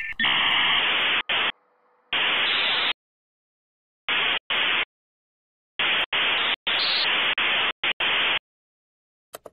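Stuttering bursts of static hiss that cut in and out abruptly, with dead silence between bursts, in about a dozen uneven chunks that stop shortly before the end.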